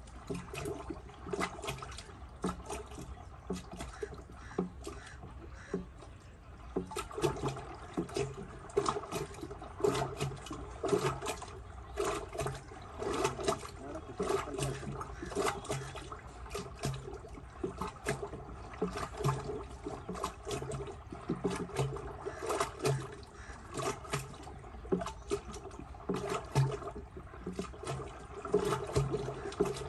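Yogurt being churned into butter with a hand-driven wooden churn: the thick liquid sloshing and splashing in the vessel with quick, repeated strokes.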